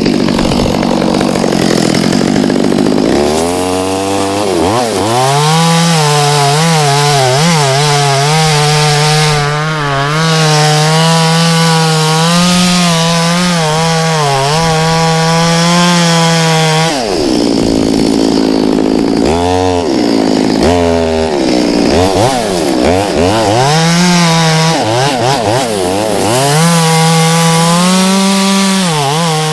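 Two-stroke chainsaw cutting through a tree trunk: it idles low, then revs up about four seconds in and holds at high speed with the pitch wavering under the load of the cut. It drops back around the middle, is blipped a few times, then revs up and cuts again to the end.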